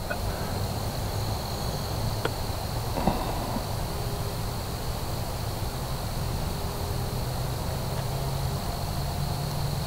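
A steady high-pitched insect trill, crickets singing, over a low steady rumble of woodland background noise. A couple of faint clicks come about two and three seconds in.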